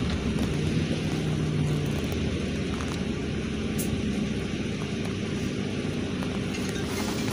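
Inside a LiAZ 5292.67 city bus: the engine runs with a steady low hum under road and cabin noise as the bus creeps forward in slow traffic, the hum shifting pitch slightly in the first few seconds.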